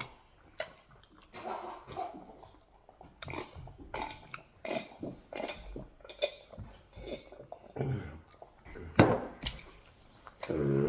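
Eating sounds: mouth smacking and chewing of garri with ogbono soup, with scattered small clicks and clinks of dishes and a louder sharp click about nine seconds in. A short low voiced sound comes near the end.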